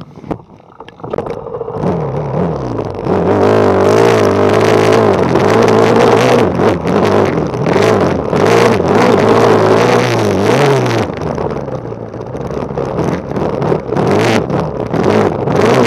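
Honda CRF450 motocross bike's four-stroke single-cylinder engine heard from an onboard camera, quiet for about a second, then accelerating and running hard, its revs rising and falling with the throttle, with a brief dip in revs near the end before pulling again.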